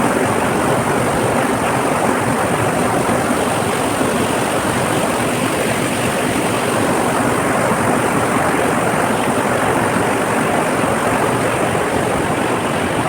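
Steady rush of a waterfall, falling water making an even, loud noise that cuts in suddenly at the start.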